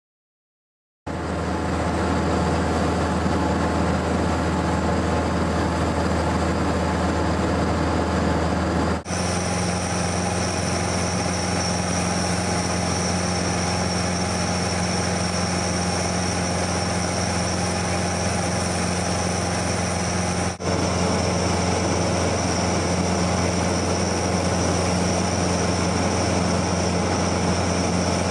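Steady drone of a Cessna 172N Skyhawk's four-cylinder Lycoming O-320 engine and propeller in cruise flight, heard inside the cabin. It starts about a second in and dips very briefly twice.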